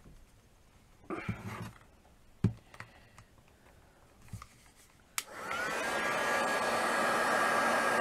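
Small handling sounds and a sharp knock, then about five seconds in a click as a handheld hot-air dryer switches on; its motor spins up to a steady pitch and it runs with a loud, even blowing rush, drying a freshly painted coat.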